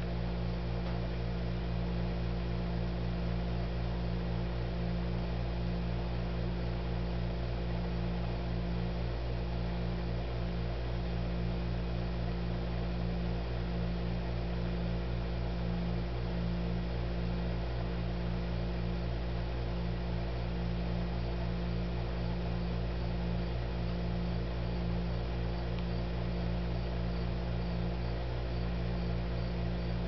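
Steady low electrical hum with several fixed low tones and a light hiss, like mains hum from equipment in the room. In the last several seconds a faint, regular high-pitched pulsing joins it.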